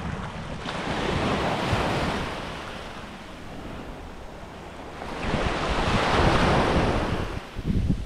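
Sea surf breaking and washing up the beach in two swells, the first about a second in and a louder one about five seconds in, with wind rumbling on the microphone.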